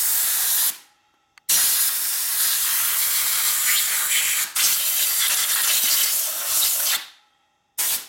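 Pressurised cleaning spray hissing in trigger-controlled bursts, blasting debris out of a motorcycle's primary drive case. One burst cuts off under a second in, a long burst of about five and a half seconds follows, then two short blasts near the end.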